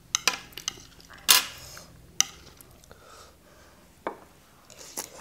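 Metal cutlery clinking and scraping against a plate of noodle salad as it is stirred and picked up: a few sharp clicks, with one longer scrape about a second in.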